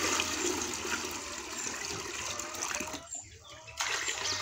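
A stream of water poured from a large plastic bucket splashing steadily into smaller plastic buckets. The pour breaks off briefly about three seconds in, then starts again.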